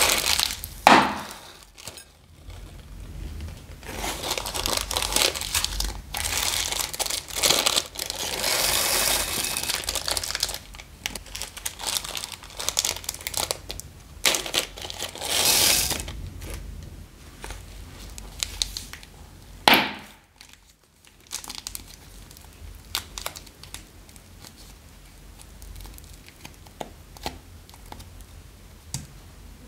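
Small plastic zip-lock bags crinkling as they are handled and pulled open, with spells of rustling loudest in the first half and one sharp burst about two-thirds through. Softer small crackles of plastic near the end.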